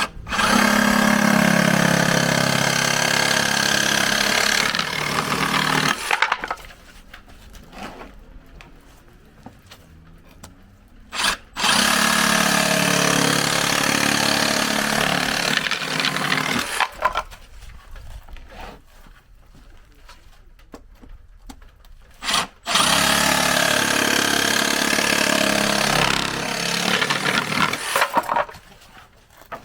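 Makita JR187DZ 18V cordless reciprocating saw cutting through 12 mm plywood in three runs of about five to six seconds each, with short pauses between cuts.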